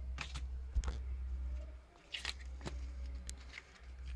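Hands handling a CD case and opening its paper booklet: a scattering of short plastic clicks and paper rustles, over a steady low hum.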